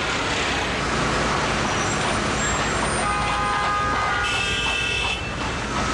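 Dense city street traffic noise, with several car horns honking and overlapping from about halfway through.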